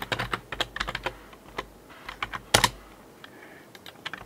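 Computer keyboard typing: a quick run of keystrokes for about two and a half seconds, ending in one louder key press, then only a few scattered light taps.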